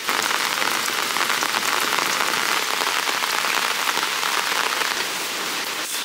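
Steady rain falling on a surface: a dense, even patter of fine drops.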